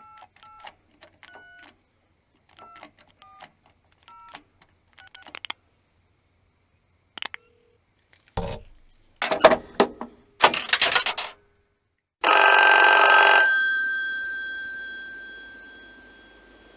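Telephone sounds: a string of short two-tone push-button dialing beeps with button clicks, then loud clattering knocks. About twelve seconds in, a telephone bell rings once for about a second and fades out.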